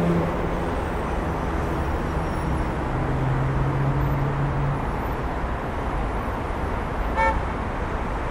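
Road traffic on a city street: a steady rush of passing vehicles, with a low drone for a couple of seconds around the middle and one brief high beep near the end.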